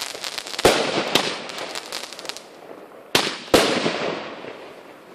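Aerial firework shells bursting: two pairs of sharp bangs, the second pair about two and a half seconds after the first. Each pair is followed by a crackling tail that fades away.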